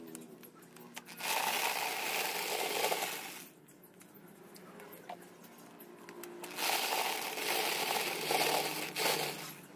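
Electric drill spinning a dried corn cob down a pipe sheller lined with tek screws, stripping the kernels off so they rattle down into a plastic bucket. Two bursts of about two to three seconds each, with a quieter gap between.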